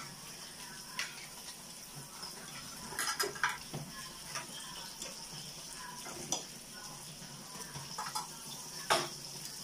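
Metal tongs and spoons clinking against plates and a tabletop grill pan, in scattered sharp clinks with a cluster about three seconds in and the loudest near the end, over a steady sizzle of pork belly frying on the grill.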